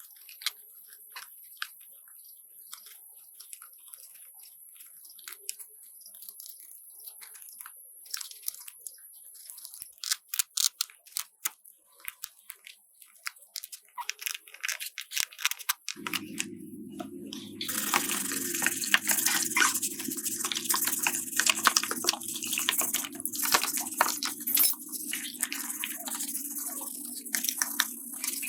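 Scattered light clicks and knocks, then a small motor starts humming about halfway through. A couple of seconds later a loud, steady hissing with crackling begins over the hum, like a motor-driven cleaning tool at work.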